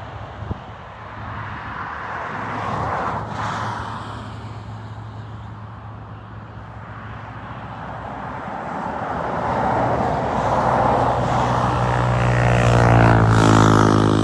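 Highway traffic passing: one vehicle goes by about three seconds in, then a louder vehicle approaches and passes near the end, its engine note falling in pitch as it goes by.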